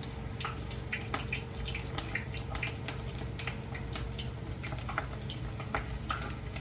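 Chicken wings frying in hot oil on a stovetop, sizzling with many irregular crackles and pops.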